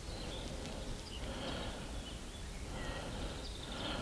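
Quiet outdoor ambience: a steady low hiss with a few faint bird chirps scattered through.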